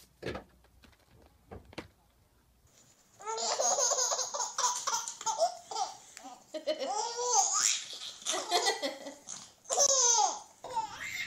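A baby laughing hard in repeated bursts of belly laughs, starting about three seconds in, as a dog nuzzles it. A woman laughs along. Before the laughter there are only a few faint knocks.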